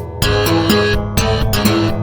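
Guitar-driven alternative punk rock music with a steady beat.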